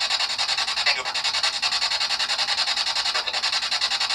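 Spirit box (ghost box) radio sweeping rapidly through stations: a choppy hiss that pulses several times a second, with brief fragments in it that the investigators hear as the words "Adam" and "nothing".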